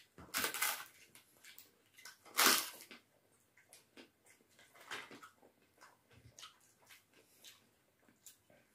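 Eating with the hands: crisp papad crackling as it is broken and bitten, in a few short bursts, the loudest about two and a half seconds in, with faint clicks and squelches of rice and dal being mixed on steel plates between them.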